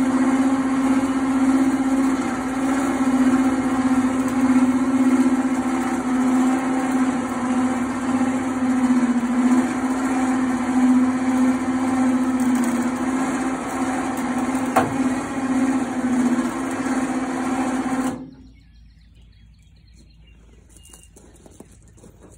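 A DIY truck-mounted crane's lift motor running with a loud, steady hum as it hoists a skid steer attachment, with a single click near the end. The hum stops abruptly about 18 seconds in, when the lift ends.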